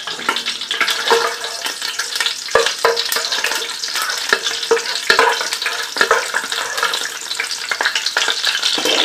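Whole spices and almonds frying in hot ghee over a high flame: a steady sizzle with irregular sharp crackles and pops.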